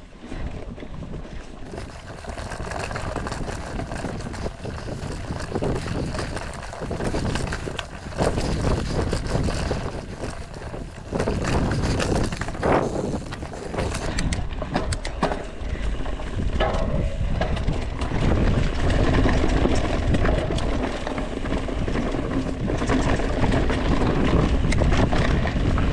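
Mountain bike ridden over a rocky, leaf-strewn trail: wind buffets the microphone while the tyres and frame clatter and knock over the rocks. It grows louder about halfway through as the pace picks up.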